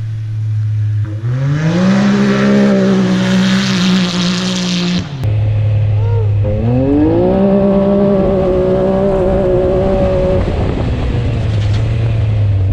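Straight-piped Can-Am Maverick X3 turbo three-cylinder engine pulled hard twice under acceleration. Each time the revs climb quickly, then hold high, with a loud rushing hiss over the first pull. The first pull cuts off sharply with a click, and after the second the engine falls back to a low, steady run.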